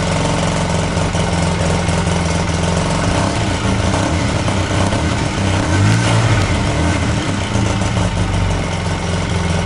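Stock-exhaust 2011 Polaris RZR 800's twin-cylinder engine idling steadily just after being started, with one short rev about six seconds in.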